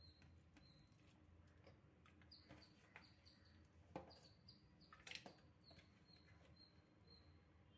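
Near silence, with soft knocks and clicks as raw mutton pieces are dropped into an empty aluminium pressure cooker; the loudest come about four and five seconds in. A faint high chirp repeats about twice a second throughout.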